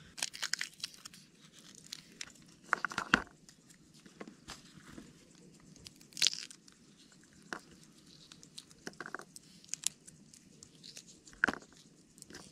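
Fresh green pea pods being split open and shelled by hand: irregular crisp snaps and tearing of the pods, scattered through the quiet.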